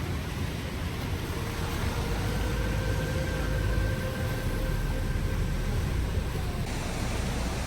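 Steady rushing of a large waterfall, a dense even noise with a heavy low rumble.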